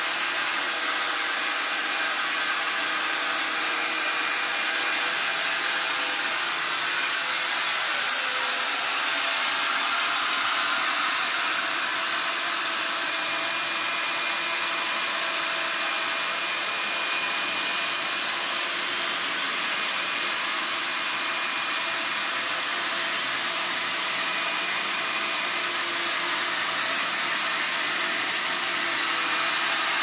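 Upright vacuum cleaner running steadily: an even rush of air with a faint high whine from the motor.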